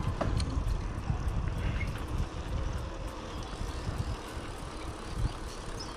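Bicycle riding along a paved street: a low, uneven rumble of wind on the microphone over the hiss of tyres rolling on the road.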